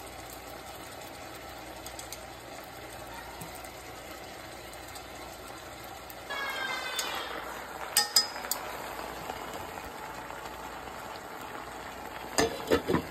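Fish fillets frying in oil on a griddle pan with a steady sizzle that grows louder about six seconds in, with a few sharp utensil clicks around eight seconds. Near the end a lid knocks against a pot three times.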